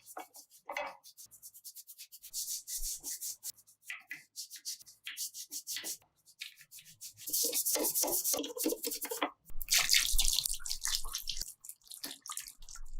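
Rapid, irregular scrubbing and scraping strokes from hand work on a part, with louder stretches about seven and ten seconds in.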